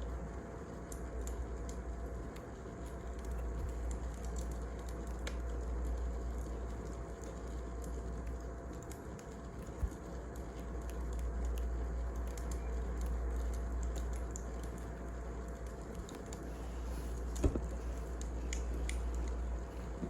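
Wood fire crackling: sparse small ticks and crackles over a steady low rumble, with two sharper pops, one near the middle and one near the end.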